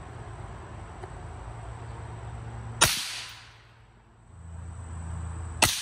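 Two suppressed rifle shots from an AR-style rifle fitted with an Aero Precision Lahar suppressor, about three seconds apart, each sharp crack trailing off in a short echo.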